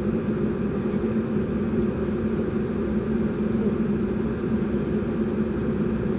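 A 2.5-ton gas package unit running steadily in heating mode, giving a continuous low mechanical hum.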